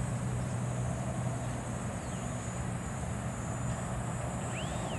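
Outdoor ambience: a steady low hum under a thin, steady high-pitched buzz, with one short rising-and-falling whistle near the end.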